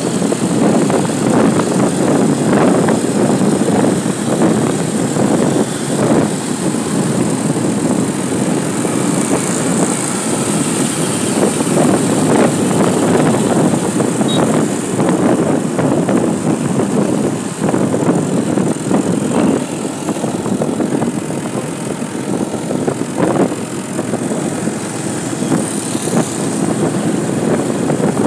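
Wind rushing and buffeting over the microphone with a vehicle engine running underneath, recorded from a moving vehicle on the road. The noise is steady and loud, with frequent irregular gusts.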